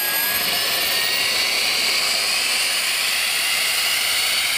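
Jet Joe Jr model gas turbine running on the Stryker RC jet, a loud steady hiss and high-pitched whine that slowly rises in pitch as it spools up.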